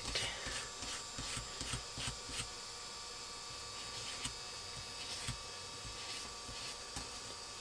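Faint scratching strokes of a fine wire brush scrubbing a copper circuit board, stopping about two and a half seconds in, leaving a steady low hiss.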